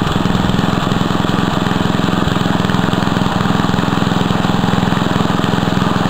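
Riding lawn tractor's engine running steadily under load as the tractor pulls against a seat belt tied to its hitch, given full throttle.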